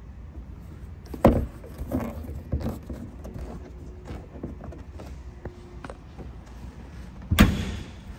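Knocks and bumps from the trunk of a 1983 BMW 733i being handled, ending about seven seconds in with a heavy thud as the trunk lid shuts. A low steady hum runs underneath.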